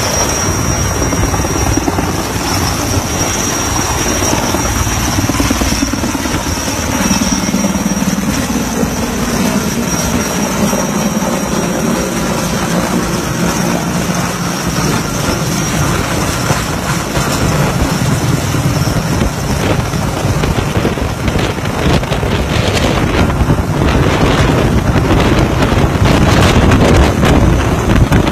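Helicopter running close by: a steady, heavy rotor and engine noise, with a thin high whine through the first half. It grows louder and rougher with crackling over the last several seconds.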